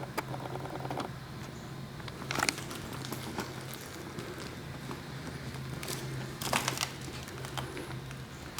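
Crinkling and crunching of paper and debris, handled or stepped on, in scattered clicks with two louder bursts about two and a half and six and a half seconds in, over a steady low hum.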